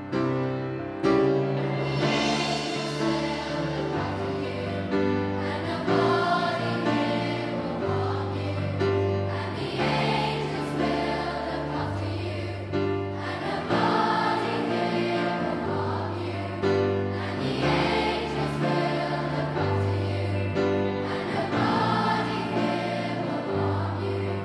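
School choir of children singing with instrumental accompaniment, over low bass notes that change about every two seconds.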